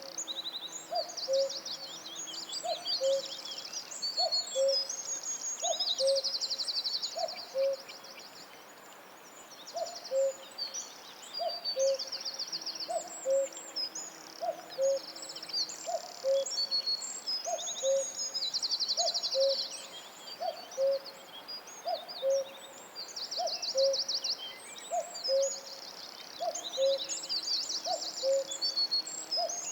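Tropical forest bird chorus: a short low hooting note repeated about once a second, under rapid high trills and chirps from other birds.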